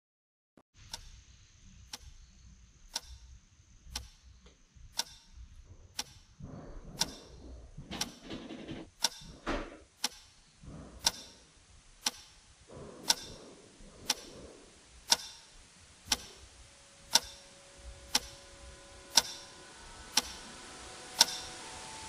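Clock ticking, one sharp tick about every second, the ticks growing louder toward the end. Softer clattering and rustling sounds in between, and faint steady tones come in about two-thirds of the way through.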